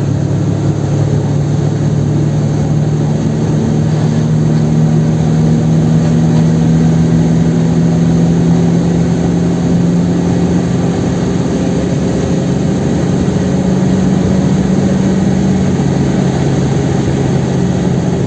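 Chevrolet Kadett 1.8's naturally aspirated four-cylinder engine running steadily at highway speed, heard from inside the cabin with road noise under it.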